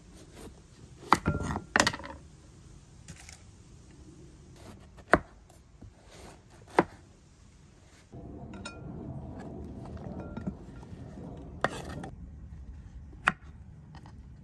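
Kitchen knife cutting through a hard green-skinned pumpkin on a wooden chopping board: about six sharp, irregular knocks as the blade chops through and hits the board. The background noise gets louder from about eight seconds in.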